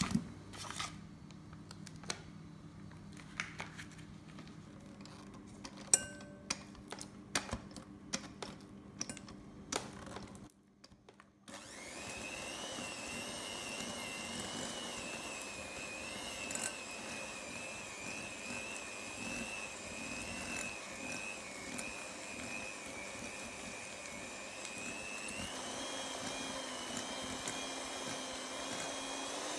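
Scattered clicks and knocks, then from about twelve seconds in an electric hand mixer beating butter in a glass bowl, running steadily with a wavering whine that rises a little near the end.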